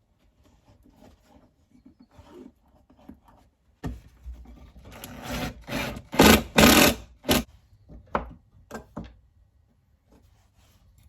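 Wood being rubbed and scraped by hand: faint scrapes at first, then several loud rasping strokes about four seconds in. A few sharp clicks follow.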